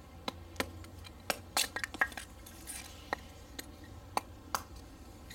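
A small hatchet's blade striking a thin stick of wood held upright on a stump: a string of about a dozen light, sharp knocks at an uneven pace.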